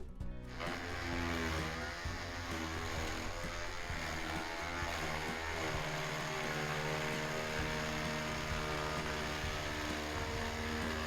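A motor-driven machine running with a steady, dense noise that starts abruptly about half a second in, its pitch wavering for the first few seconds and then holding steady.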